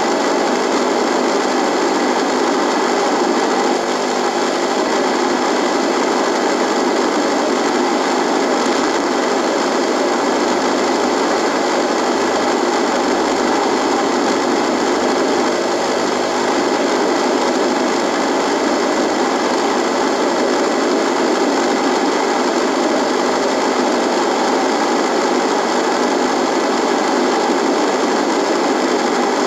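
Radio buzzing: a steady, unchanging hiss of static with faint steady hum tones running through it.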